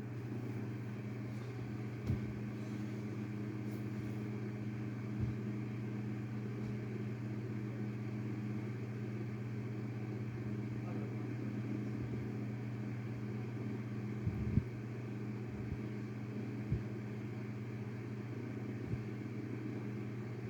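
A steady low hum, with a few faint, short knocks or clicks scattered through it.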